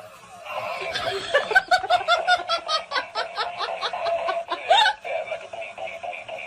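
A person laughing: a quick, even run of laughs, about four a second, lasting some three seconds.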